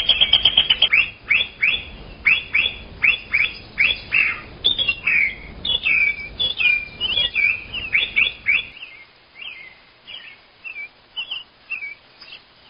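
Small birds chirping: a quick run of notes, then a string of short downward-sweeping chirps at about two a second, becoming more varied before thinning out to a few faint, scattered chirps for the last few seconds.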